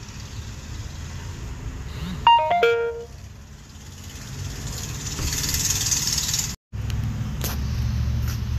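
Low rumble of road traffic, with a quick electronic chime of four or five notes stepping downward about two seconds in. A high hiss swells over the next few seconds and then cuts off abruptly.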